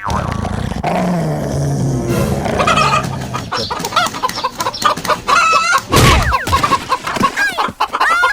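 Animal calls: many short calls that bend up and down in pitch, coming thick and fast in the second half, after a lower drawn-out sound at the start.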